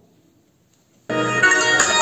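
About a second of near silence, then music starts abruptly and plays loudly through open speakers driven by a ZK-MT21 class D amplifier board.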